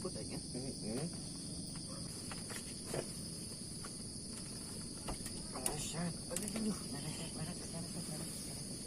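Insects trilling steadily in a continuous high-pitched chorus, with faint distant voices and a few small knocks underneath.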